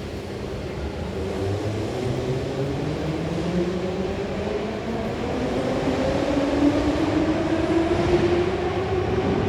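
Subway train's traction motors whining with a rising pitch over the rumble of the cars, getting gradually louder as the train accelerates.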